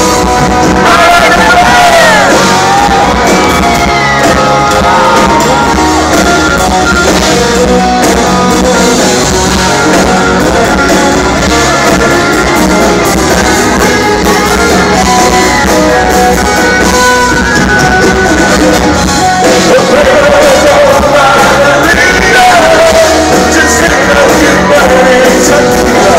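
Live country-rock band playing loudly, with a man singing lead over acoustic guitar and the band. The voice is clearest near the start and again from about 20 seconds in.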